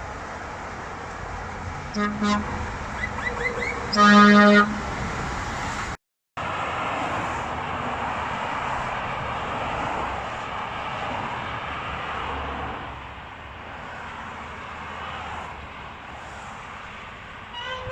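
Truck air horn: a short blast about two seconds in, then a louder blast of about half a second around four seconds in, over road traffic noise. Steady traffic noise follows, and near the end a second, higher-pitched horn begins.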